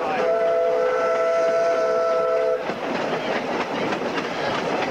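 Steam whistle of the George England 0-4-0STT locomotive PRINCE, one long blast of several notes sounding together that cuts off about two and a half seconds in. After it, the narrow-gauge train running on with a clicking rattle over the rail joints.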